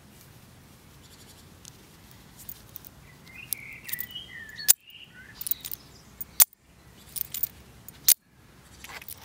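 Fidlock magnetic buckle on a denim dog collar being snapped shut and released by hand: three sharp, loud clicks about a second and a half apart, with lighter clicks of handling between them. Birds chirp faintly in the background.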